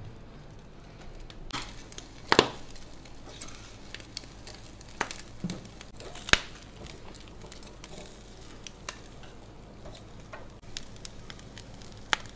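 Sauced pig's trotters sizzling softly on a grill grate, with a few sharp clacks of metal tongs against the grate and meat. The loudest clacks come about two and a half and six seconds in.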